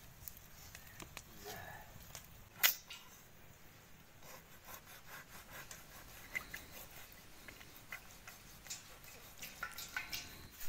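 Large knife scraping the scales off a small river fish held over a steel basin of water: a quick run of faint, repeated scraping strokes through the second half, with a single sharp click a few seconds in.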